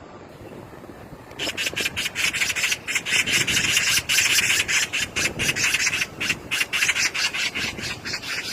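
Magpie chattering: a fast, harsh rattling call of rapid repeated notes, starting about a second and a half in and running on loudly.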